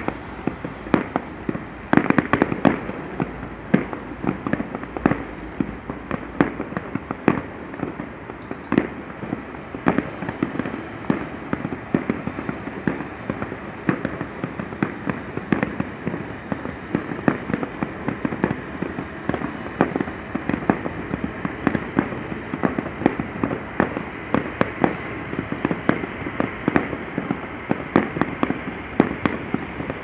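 Fireworks display going off in a dense, continuous string of bangs and crackles, many bursts a second with no pause.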